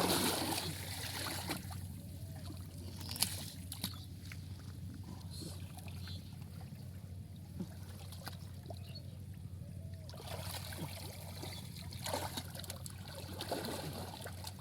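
Water trickling and splashing, with a few sharp clicks about three to four seconds in and more splashing near the end.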